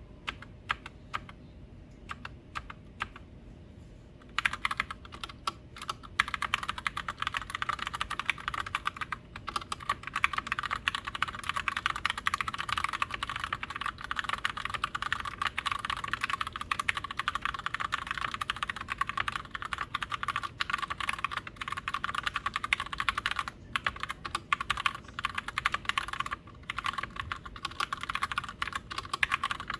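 Glorious GMMK White Ice TKL mechanical keyboard with Gateron Brown tactile switches being typed on: a few scattered keystrokes, then fast continuous typing from about four seconds in, broken by a few short pauses.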